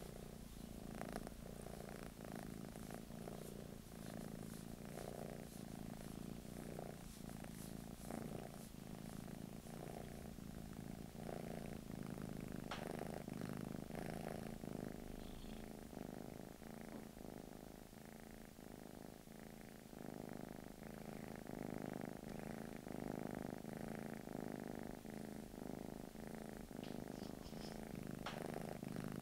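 Blue British Shorthair cat purring steadily and continuously, a low rhythmic rumble that eases slightly for a few seconds mid-way.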